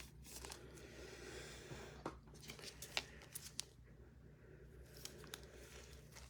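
Faint rustling of trading cards and their packaging being handled, with a scatter of small sharp clicks and taps from about two seconds in.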